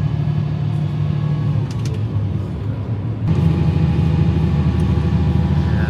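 Heavy diesel engine running steadily nearby, its deep drone growing louder a little past halfway through.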